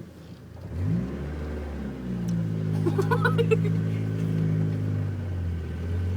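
Truck engine revving up about a second in and held at a steady high pitch for several seconds, then dropping lower near the end, with a brief warbling higher tone over it midway.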